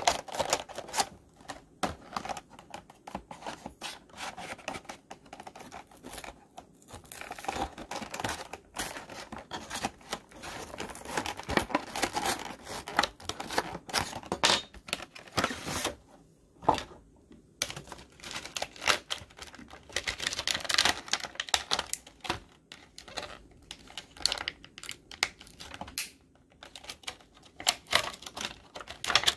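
Stiff plastic toy packaging being opened by hand: a clear blister pack and small plastic accessory bags crackling and clicking in quick, irregular bursts.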